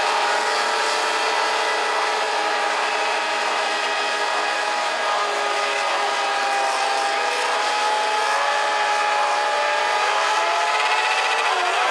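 Several 600cc cross cars' motorcycle engines running together on the starting grid, held at steady revs, with some revving up and down near the end as the start nears.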